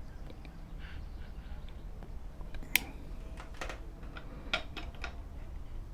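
A few sharp clicks and light taps of small hard objects being handled, over a steady low hum.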